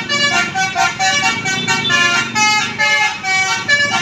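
Bus's telolet Basuri musical air horn playing a fast tune of short, shifting notes.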